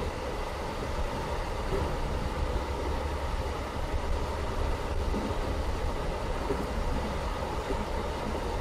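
Running noise heard inside a BLS passenger train coach on the move: a steady low rumble of wheels on rail with a faint steady tone over it.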